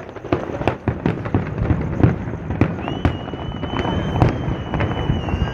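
Fireworks display going off: a rapid, unbroken run of bangs and crackles. From about halfway in, a steady high-pitched whistle sounds over them.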